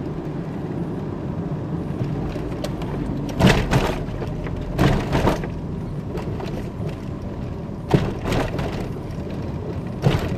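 Cabin sound of a VAZ-21093 with its carbureted four-cylinder running on the last drops of fuel: a steady low drone broken by several sudden knocks as the car jerks. The engine is starving of fuel and about to stall.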